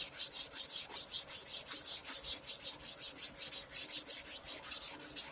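Abrasive paper on a fret-levelling bar rubbed back and forth over the metal frets of a Squier electric guitar neck, about five quick strokes a second, each a scratchy sanding hiss. The frets are being levelled and a last slightly high spot worked down.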